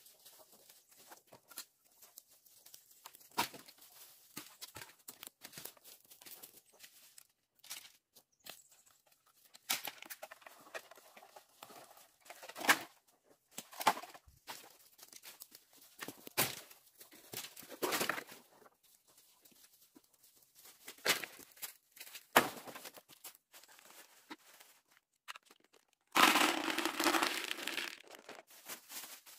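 Dry burnt leaves and twigs crackling and rustling in scattered sharp snaps as a digging stick and feet work the burned ground. About twenty-six seconds in, corn seed is poured from a bag into a plastic bucket: a dense rattle of kernels for about three seconds, the loudest sound here.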